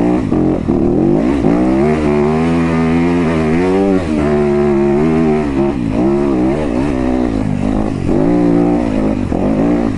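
Yamaha YZ250FX four-stroke single-cylinder dirt bike engine pulling hard up a rocky climb. Its pitch rises and falls again and again as the throttle is worked.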